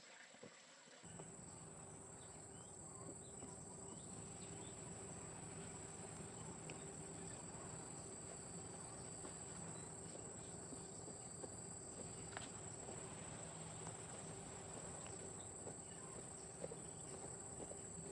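Insects giving a faint, steady high-pitched drone over quiet rural outdoor ambience, with a few soft scattered ticks.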